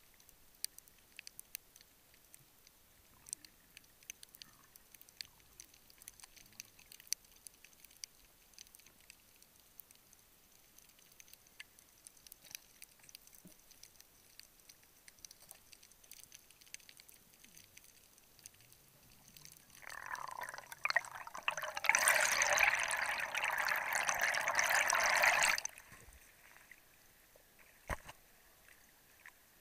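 Heard underwater: a faint crackle of scattered clicks, then about twenty seconds in a loud rush of water and bubbles lasting about six seconds as the diver ascends, cutting off suddenly as the camera comes up to the surface.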